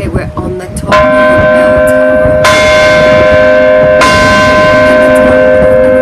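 Large church bells in a bell tower struck three times, about a second and a half apart; each stroke rings on in long, steady tones that overlap the next.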